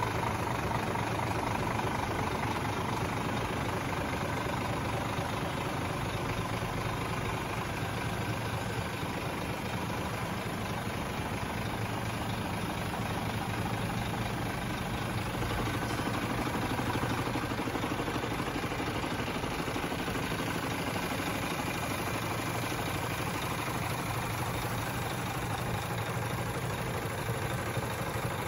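Scania R450 Streamline tractor unit's 13-litre straight-six diesel idling steadily.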